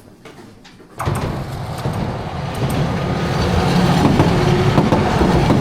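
A train's rumble and rattle, starting abruptly about a second in and growing louder.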